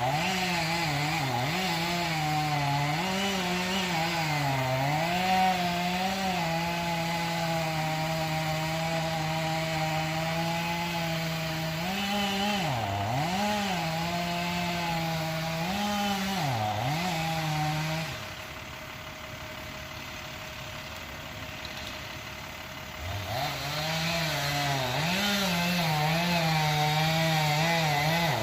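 Two-stroke chainsaw running at high revs while cutting through a tree. Its pitch sags and recovers each time the chain bites into the wood. In the second half it falls quieter for about five seconds, then revs back up and cuts again.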